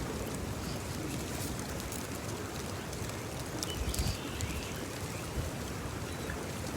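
Small creek running, a steady rush of water, with wind gusting on the microphone underneath.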